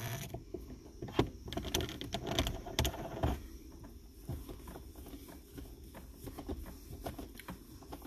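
A Toyota Aqua gear knob being twisted by hand onto its shift lever: a run of irregular small clicks, scrapes and rubbing as the knob turns on its thread.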